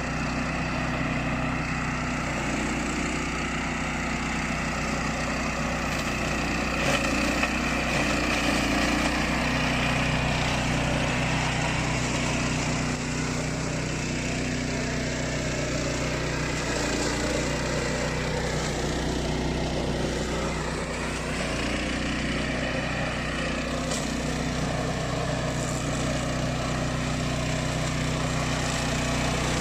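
Engine of a remote-control flail mower running steadily, its note shifting slightly a few times as the load changes.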